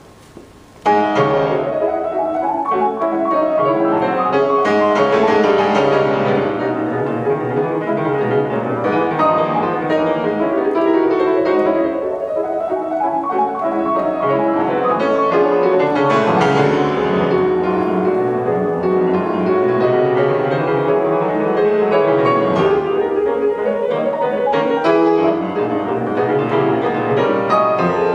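Music that starts suddenly about a second in, after faint hiss.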